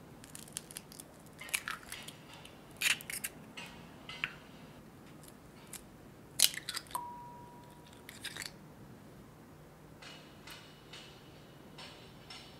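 Two eggs cracked against a glass bowl and pulled open: sharp shell cracks and crackling, one egg about three seconds in and the next, the loudest crack, about six and a half seconds in. A brief thin ringing tone follows the second crack.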